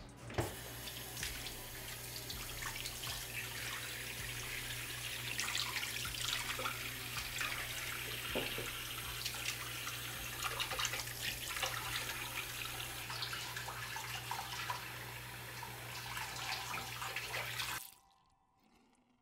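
Running water splashing and spattering onto a hard surface, with a steady low hum underneath; both cut off abruptly shortly before the end.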